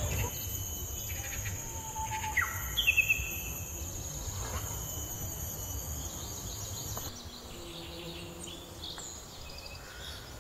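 Tropical forest ambience: a steady high-pitched insect drone with bird calls, including a few quick gliding whistles about two to three seconds in. The insect drone stops about seven seconds in, leaving scattered faint bird chirps.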